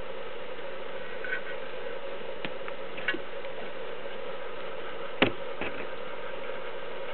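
A few scattered clicks and knocks from a black and white tegu feeding at a ceramic dish, the sharpest about five seconds in, over a steady hum.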